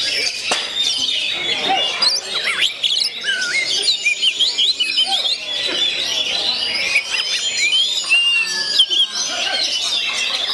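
Oriental magpie-robin (kacer) singing: a continuous run of varied whistles and quick chirps, with notes sliding up and down and overlapping densely.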